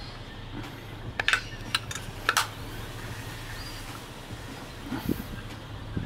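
Several sharp clicks and taps of plastic and metal parts as the white plastic cover is fitted back onto a seatbelt retractor's metal frame by hand, over a steady low hum.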